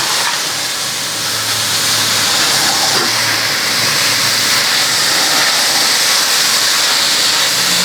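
Oyster mushrooms sizzling steadily in a hot, dry pan with no oil, a constant loud hiss.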